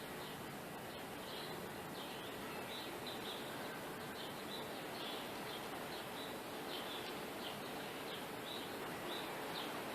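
A small bird chirping over and over in short, high notes, about two a second, over a steady outdoor background hiss.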